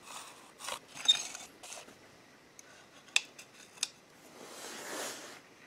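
Handling noise from a capacitor and a loudspeaker driver being moved about: light rustles and a few sharp little clicks, two of them about half a second apart just past the middle, as the capacitor's wire leads are brought against the speaker's terminal strip. A soft rustling swell follows near the end.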